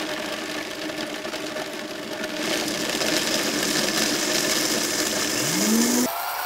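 Vitamix blender motor running, blending whole cashews, garlic and hot water into a smooth cream sauce. A higher whine joins about two and a half seconds in, a rising tone near the end, then the sound drops abruptly to a quieter steady hum.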